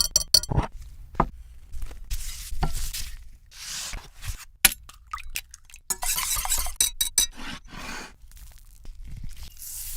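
Kitchen food-prep sounds: sharp clinks of dishes and utensils, some ringing briefly, between short crunchy, rustling bursts.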